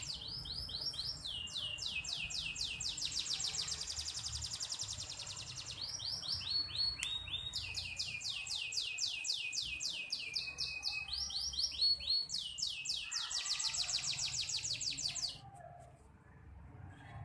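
A small bird singing long, fast trills of high notes, each note sliding downward, about ten notes a second in several runs with short breaks, cutting off suddenly near the end.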